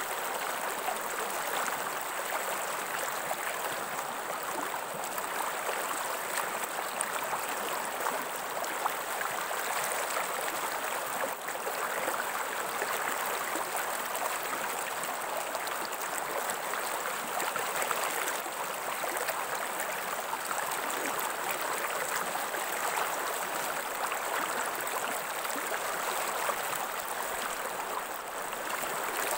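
Stream water running steadily, an even rush of water noise with no break.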